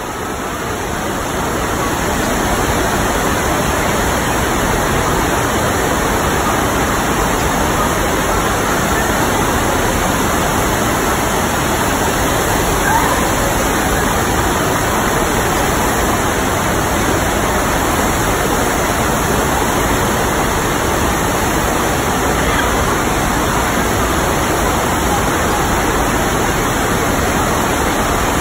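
Water sheeting up a surf-simulator ramp: a steady, loud rushing that swells over the first couple of seconds and then holds even.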